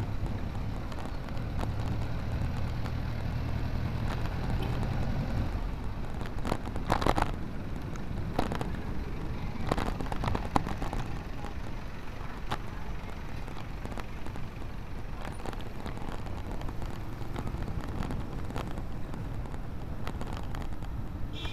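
Wind and road noise from a vehicle moving through city traffic, with a low engine hum in the first few seconds and several sharp knocks from bumps scattered through the middle.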